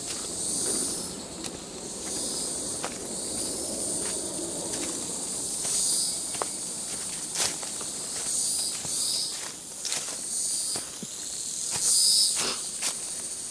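High-pitched insects calling in repeated short bursts from the forest undergrowth. Through them come irregular footsteps crunching on dry leaf litter, with brushing and snapping of twigs and vegetation.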